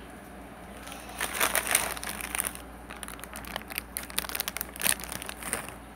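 Crinkling and rustling with scattered sharp clicks, close to the microphone, from something being handled, starting about a second in and stopping just before the end.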